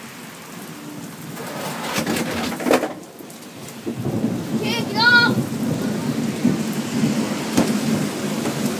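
Thunder rumbling under steady rain. The rumble swells a couple of seconds in, dips briefly, then grows louder from about four seconds in. A short high chirp is heard about five seconds in.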